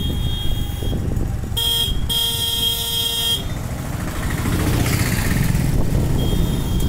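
A vehicle horn sounds twice: a short toot about one and a half seconds in, then a longer blast of about a second. Under it runs a steady low rumble of road traffic and engines.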